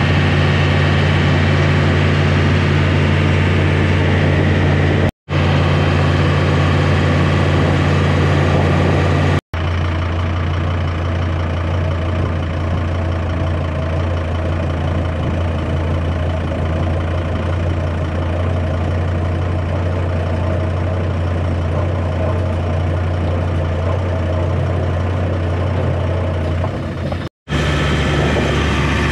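John Deere 5325 tractor's diesel engine running steadily as the tractor drives along, its drone broken three times by a short gap where the sound cuts.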